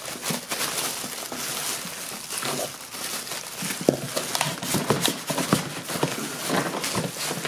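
Cardboard box scraping and rustling with irregular knocks as a boxed computer case is tugged and worked against the tight box, the knocks sharper from about four seconds in.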